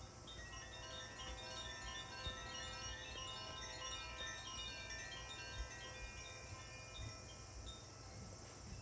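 Sound-bath chimes ringing, many clear bell-like tones struck one after another and left to overlap and sustain.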